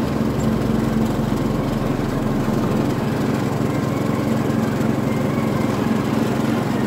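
Riding lawn mower's engine running steadily at a constant speed as the mower drives over grass.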